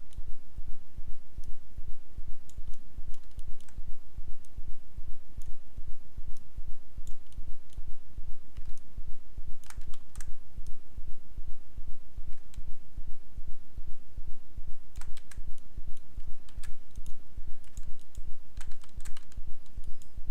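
Computer keyboard keys and mouse buttons clicking, now singly, now in short quick clusters, over a low hum that pulses about three times a second.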